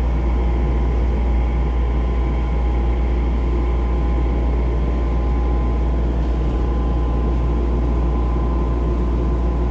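Cabin sound of an airport people-mover train running along its guideway: a steady low rumble with a constant hum over it.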